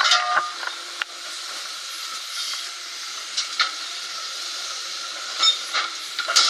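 Rotar RCC25 hydraulic rail cutter working steel rail: a steady hiss with sharp metallic clanks and a high squeal, loudest near the start and again near the end.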